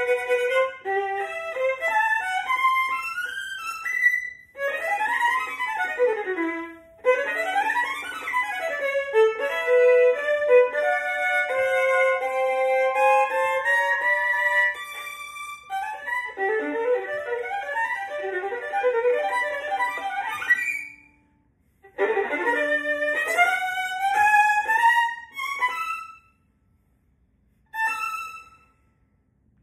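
Unaccompanied solo violin, bowed, playing fast rising and falling runs between held notes, with short pauses between phrases in the last third.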